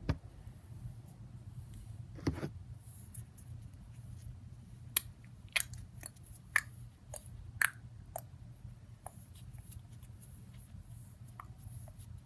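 Kinetic sand being squeezed and packed together in the hands: soft handling noise with scattered sharp clicks every second or so, over a low steady hum.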